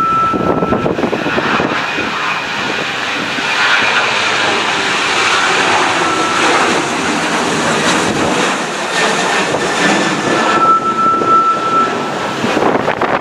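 Jet airliner engines running loud at takeoff power: a steady roar with a high whine that fades in and out.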